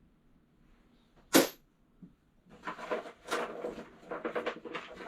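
Loose steel sockets clinking: one sharp ringing clink about a second and a half in, then from about halfway a busy run of rattling clatter as sockets are rummaged and tossed together.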